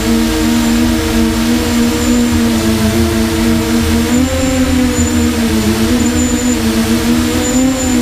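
X8 octocopter's motors and propellers whining steadily, heard up close from the drone's own camera: a layered motor hum whose pitches shift and waver about halfway through.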